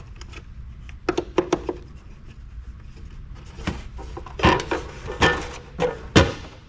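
Sharp clicks and knocks of hard plastic and metal parts being handled and pried at while a microfiche reader's mirror mount is worked loose. A quick cluster of three or four clicks comes about a second in, followed by several louder single knocks spaced through the rest.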